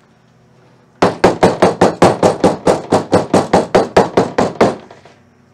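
Rubber mallet tapping rapidly on a VW Beetle door's window frame, about six quick blows a second for nearly four seconds, knocking a part back into place. The tapping starts about a second in and stops shortly before the end.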